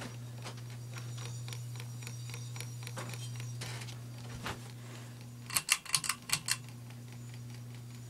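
Hampton Bay ceiling fan running with a steady motor hum and light, rapid clicking. About five and a half seconds in comes a short run of sharp, louder clicks, and the hum briefly dips.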